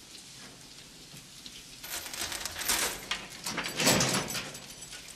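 A chain rattling and clattering against a steel mesh cell door as it is gripped and pulled, rising out of a faint crackling hiss about two seconds in and peaking with a heavier thud and rattle about four seconds in.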